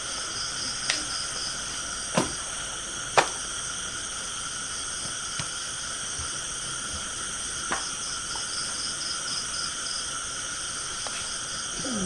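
Night-time insect chorus, a steady layered high-pitched drone with a faster pulsing chirp on top. Four sharp knocks cut through it, the loudest a little after three seconds in.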